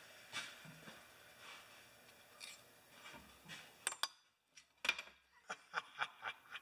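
Faint clicks and light metallic clinks from a small metal piece being handled in leather-gloved hands. A quick run of sharper ticks comes in the second half.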